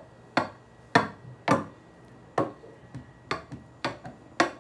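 Knife tip stabbed down through a pasta bake, tapping the bottom of a glass baking dish about nine times at an uneven pace of roughly two a second. The holes let the sauce seep into the pasta.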